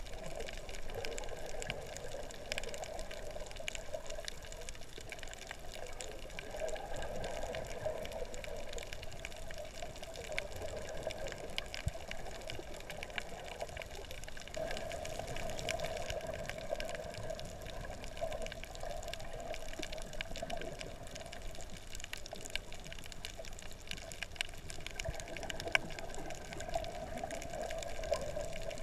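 Underwater sound through a camera's waterproof housing: a steady, muffled rush of moving water, with scattered faint clicks.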